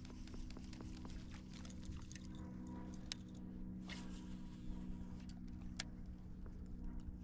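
A small motor humming steadily at a low pitch, with many short clicks and light taps scattered over it.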